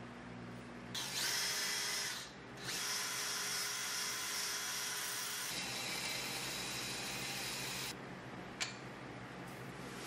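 A motor-driven wire wheel brushing a metal knife bolster held in a vise, a loud steady hiss starting about a second in, easing off for a moment, then running on until near the end. A single sharp click follows.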